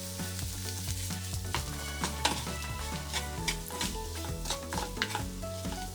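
Potato and pea samosa filling sizzling in a frying pan while a spoon stirs it, with scattered clicks and scrapes against the pan. Soft background music plays underneath.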